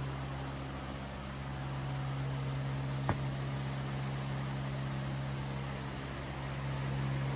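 A steady low mechanical hum, with a single sharp click about three seconds in.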